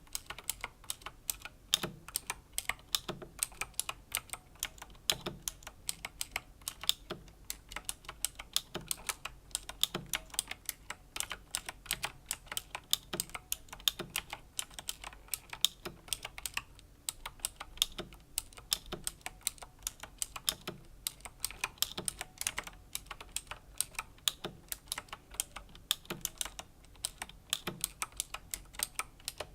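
Slow typing on a Razer BlackWidow Chroma V2 mechanical keyboard with clicky Razer Green switches: an irregular run of sharp key clicks, several a second, with a duller low thud about once a second.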